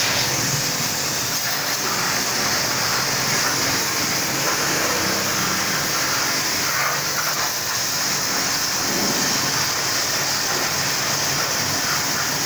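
Electric pressure-washer pump running while its jet sprays water onto a motorcycle's front wheel and fork: a steady hiss of spray over the pump's hum, with no break.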